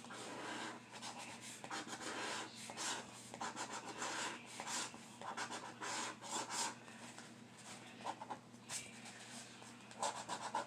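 Scratch-off lottery ticket being scratched, with a run of short, irregular rasping strokes as the coating is rubbed off to uncover the numbers.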